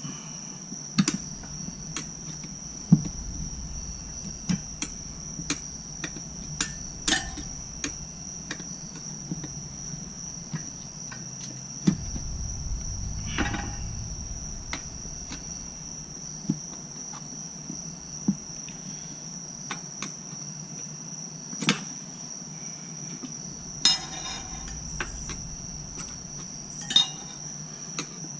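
Metal clicks and knocks, one or two a second and irregular, as the dirt bike tire is levered onto its rim and the bead is worked around the wheel. A steady high-pitched insect trill runs underneath.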